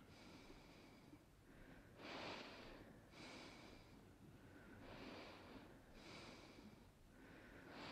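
Faint hissing breaths drawn in and let out through a breathing-mask apparatus, a few slow breaths about a second apart.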